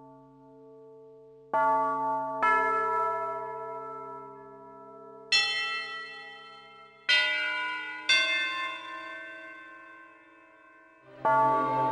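Bell tolling: five separate strikes at uneven intervals, each ringing out and slowly dying away. Near the end a deeper, fuller ringing sets in.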